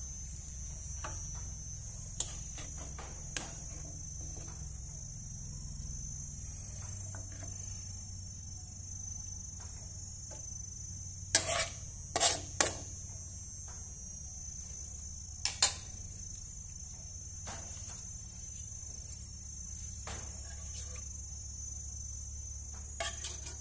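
A utensil knocking and scraping against a nonstick frying pan a few times as braised eggs are scooped out onto a plate, the sharpest knocks clustered about halfway through. Under it runs a steady high chirring of crickets and a low hum.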